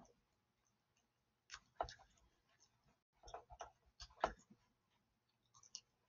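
Faint, sharp clicks of a computer mouse button, in quick pairs about four times, pressed and released for brush strokes.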